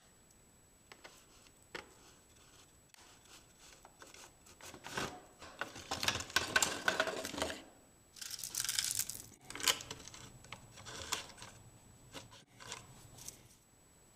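Scattered small clicks and scratches, then irregular bursts of crinkly rustling and scraping in the middle: mice scrabbling around a plastic-bottle live trap on a wooden board.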